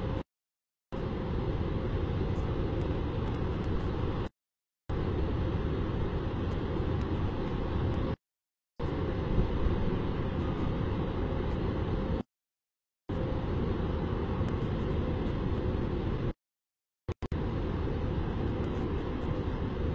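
Steady low rumble of outdoor city background noise, like distant traffic, picked up by a rooftop webcam microphone. It drops out abruptly into total silence for about half a second roughly every four seconds.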